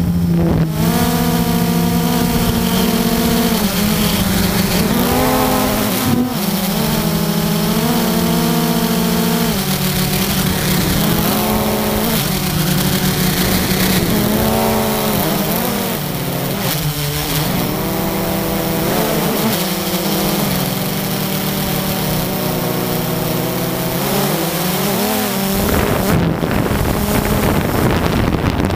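Quadcopter drone's electric motors and propellers whining steadily, several tones at once, their pitch rising and falling several times as the drone changes speed.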